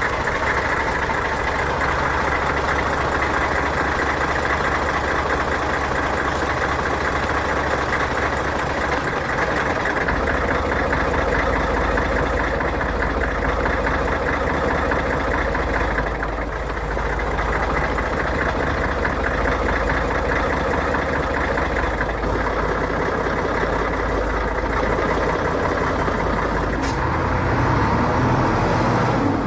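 Truck engine idling, a steady low running sound.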